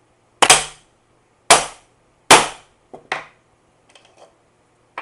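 Hammer blows on a homemade steel angle bender, folding a thin sheet-metal strip: three hard, ringing strikes about a second apart, then two lighter taps and a few faint ticks.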